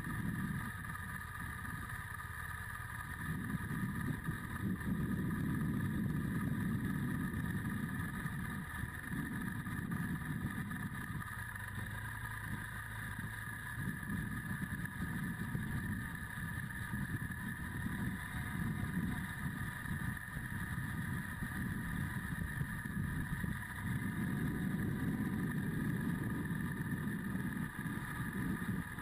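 Adventure motorcycle engine running on the move, picked up by a camera mounted on the bike: a low rumble that swells and eases every few seconds with throttle and road, under a steady high whine.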